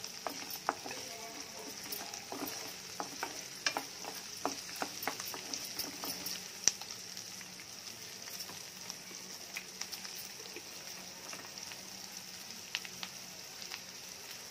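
Chopped onions, garlic and curry leaves sizzling in oil in a frying pan, with a steady hiss. A wooden spatula scrapes and taps against the pan through roughly the first half, leaving the sizzling mostly alone after that.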